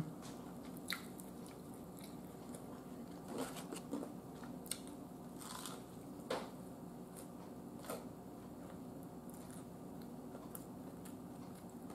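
A person chewing a honey-butter biscuit close to the microphone: scattered short mouth clicks and smacks over a faint steady hum.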